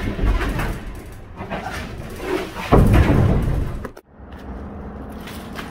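Clattering knocks, then a heavy slam a little under three seconds in. After a sudden break near four seconds, a low steady hum follows.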